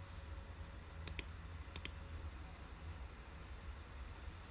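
Computer mouse clicking: two quick double clicks, about one and two seconds in, over a faint steady background hum.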